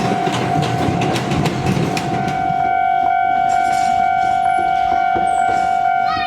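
Railroad crossing warning signal sounding steadily while an Iyo Railway Yokogawara Line train rolls through the crossing, its wheels clicking over the rail joints. The train noise dies away about two and a half seconds in and the crossing signal keeps sounding on its own.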